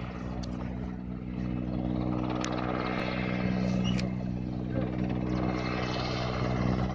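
Helicopter in flight approaching: the low, steady drone of its rotors grows louder.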